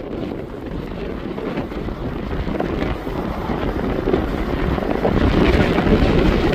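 Strong gusting wind, about 50 miles an hour, blowing across the microphone, growing louder toward the end.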